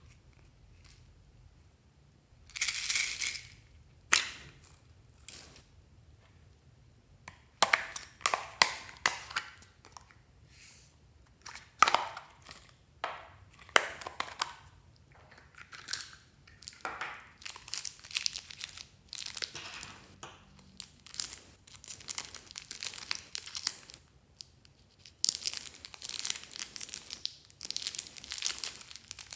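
Slime being worked by hand, giving irregular sticky crackling and popping sounds, with busier stretches of crackle and short pauses between.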